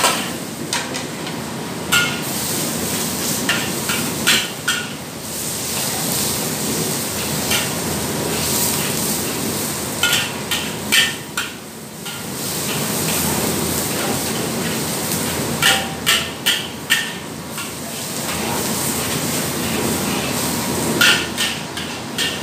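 Metal ladle clanging and scraping against a steel wok during stir-frying, over a steady frying hiss. The clangs come in quick groups of several every few seconds.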